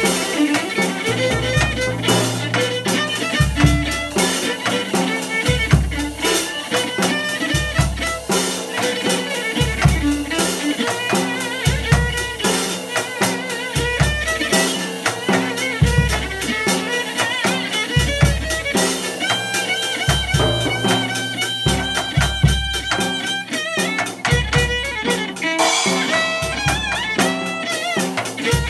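Live band music: an electric violin bowing wavering melodic lines over a drum kit with cymbals, with sustained low notes underneath.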